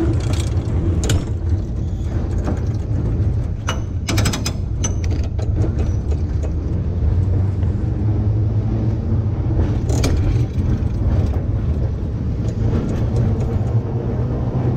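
Vintage electric streetcar running along its track: a steady low rumble from the motors and wheels on the rails. Sharp clacks and clicks come near the start, around four seconds in and again around ten seconds in.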